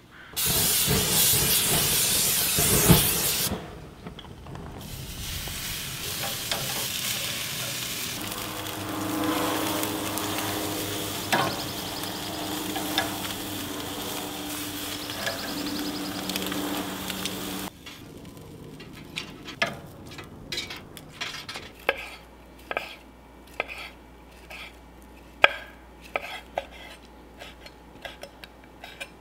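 Octopus tentacles sizzling on a gas grill, loudest in the first few seconds, then a steady hiss. From about eighteen seconds in, a chef's knife slices grilled octopus on a wooden cutting board in sharp, irregular chops.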